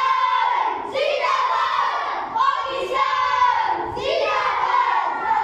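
A group of children chanting together in unison, loud raised voices in short repeated phrases about a second long.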